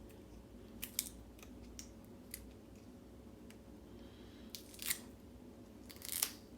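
Wrapping being cut and peeled off a mummified key: a scatter of short, sharp snips and clicks, with a couple of louder crinkly ones near the end.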